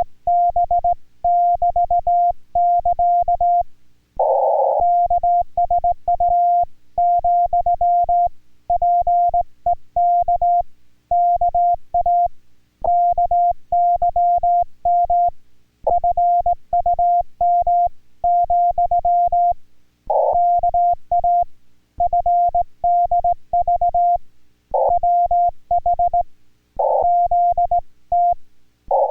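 Hand-sent Morse code (CW) in Korean Morse from an amateur radio transceiver: a steady tone keyed on and off in quick dots and dashes, with brief gaps between characters. Faint low clicks go along with the keying, and a few short scratchy bursts break in here and there.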